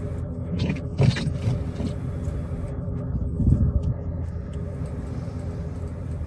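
Steady low rumble with a faint hum, broken by two brief louder thumps, one about a second in and one around three and a half seconds.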